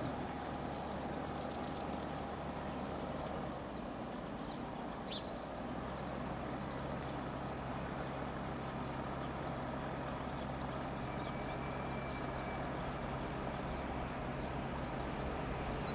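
Open-air ambience: a steady distant low hum and rumble that deepens about five seconds in, with a few faint bird chirps.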